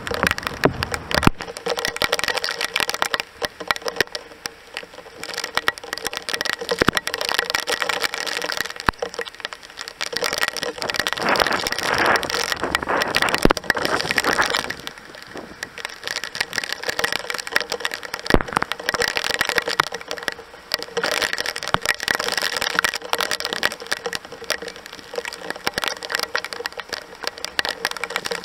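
Heavy cloudburst rain, a dense crackling patter of raindrops that sounds like popcorn over an open fire. It swells and eases in strength.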